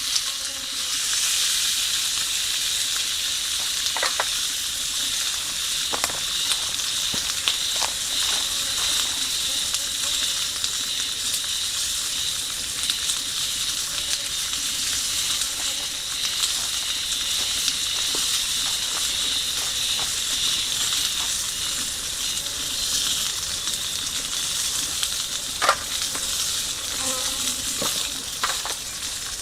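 Food sizzling steadily in a hot iron frying pan over a campfire, with scattered sharp pops and crackles now and then.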